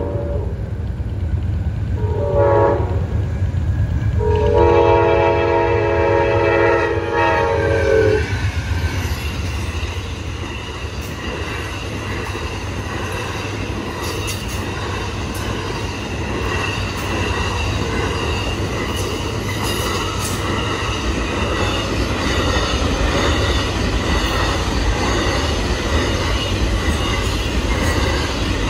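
Amtrak Auto Train's horn finishing its crossing signal: a short blast about two seconds in, then a long blast held about four seconds. This is followed by the steady rumble and clatter of the passenger cars and autoracks rolling past on the rails, with the crossing bells ringing.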